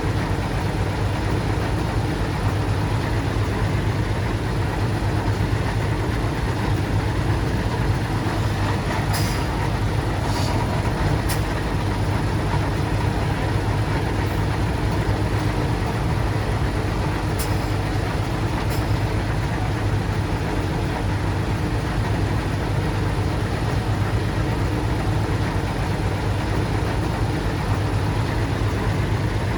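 Bulldozer's diesel engine running steadily under work, a constant low drone, with a few brief metallic clicks about a third of the way in and again just past the middle.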